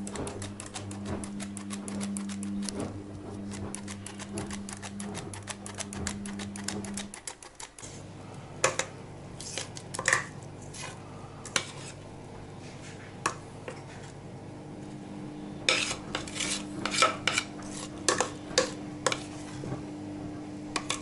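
Metal flour sifter clicking rapidly as flour is sifted for about seven seconds, over a steady low hum. Then scattered knocks and scrapes of a metal pot as soft yeast dough is tipped and scraped out of it onto the flour.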